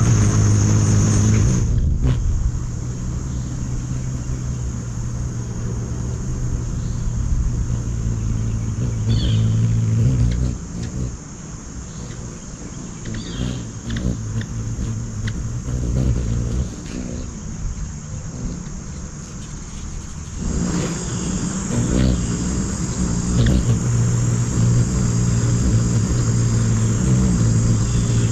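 Ruby-throated hummingbird hovering at a feeder, its wingbeats making a steady low hum. The hum fades for a stretch in the middle and comes back strong for the last third, with a few short high notes in between.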